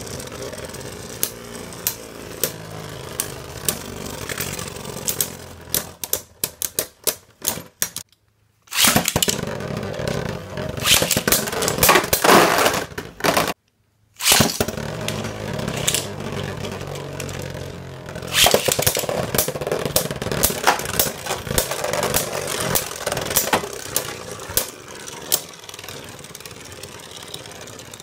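Beyblade Burst Cho-Z spinning tops, Z Achilles and Archer Hercules, whirring on a plastic stadium floor with rapid sharp clicks as they clash. Partway through the clicks thin out and the sound breaks off twice into about half a second of dead silence. About two thirds of the way in, a dense burst of clashes starts again as fresh tops collide.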